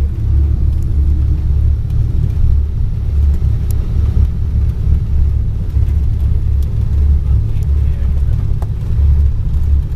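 Twin-engine Cessna's piston engines and propellers running while the plane taxis after landing, heard inside the cabin as a steady low drone.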